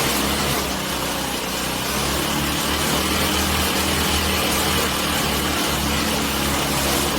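Small engine of a rice transplanting machine running steadily at an even speed, with no revving.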